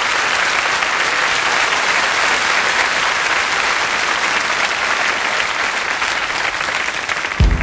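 Audience applauding steadily, cut in abruptly from silence; music with strong bass notes comes in at the very end.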